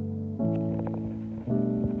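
Background music: held chords that change twice, with a few light clicks between them.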